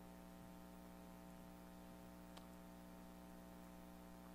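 Near silence with a faint steady electrical mains hum in the sound system, and one faint click about two seconds in.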